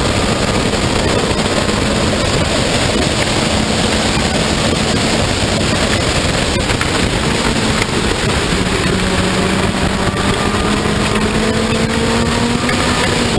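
Onboard sound of an open-cockpit sports racing car at speed: dense wind rush over the engine note. The engine holds a steady note, then rises in pitch over the last few seconds as the car accelerates.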